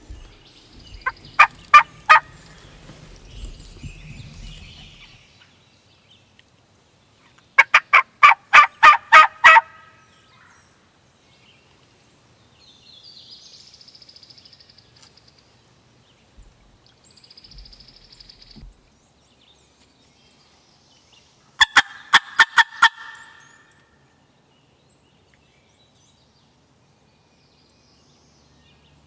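Wild turkey gobbling, three times: a short gobble about a second in, a longer one of about ten rapid notes around eight seconds in, and another around twenty-two seconds in. Faint high bird calls can be heard between them.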